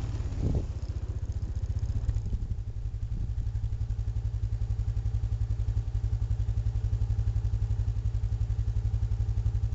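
ATV engine running at low revs with a steady, fast, even pulse. There is a short knock about half a second in.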